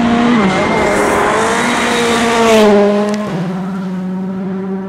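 Rally car racing past on a gravel stage, its engine note rising and falling with the throttle and gear changes. It is loudest, with a rush of noise, about two and a half seconds in, then settles to a steadier, lower note as it moves away.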